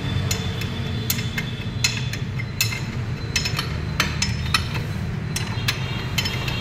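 Steel ring spanner clinking on the bolt heads as the bolts of a tractor's front bumper mounting plate are worked tight: sharp, irregular metallic clicks, roughly two a second, over a steady low hum.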